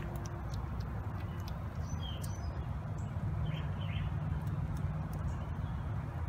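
Outdoor ambience: a steady low rumble with a few short bird chirps, one about two seconds in and two close together around three and a half seconds, and scattered faint ticks.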